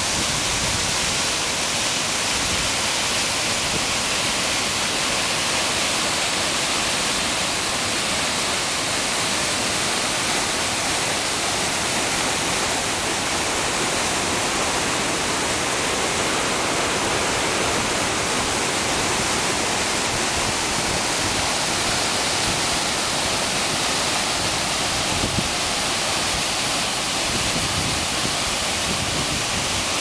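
Steady rushing of a high-mountain waterfall, white water pouring down a rock gorge.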